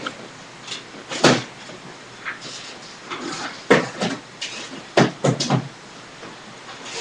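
Handling noise from small objects close to the microphone: several sharp knocks and clatters, with a quick run of three about five seconds in.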